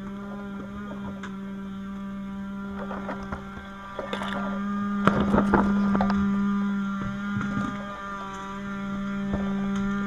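Steady engine drone holding one pitch throughout, with a burst of clattering knocks about four to six seconds in and a few single knocks around it.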